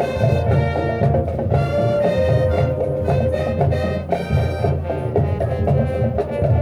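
High school marching band playing a loud passage with brass and percussion.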